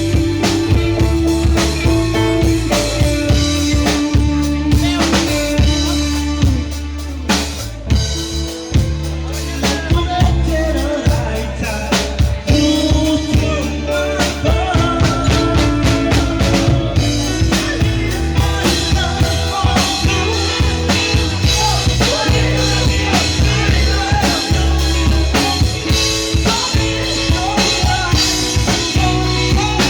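Band music with a drum kit playing a steady beat under sustained bass notes, and a singer's voice coming in about ten seconds in.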